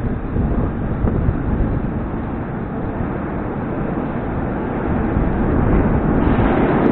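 Metro train approaching through the tunnel: a steady rumble that grows louder over the last couple of seconds as it nears the platform.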